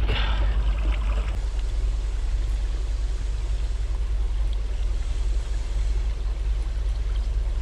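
Small creek's water running steadily, under a strong low rumble, with a louder rush of noise in about the first second and a half.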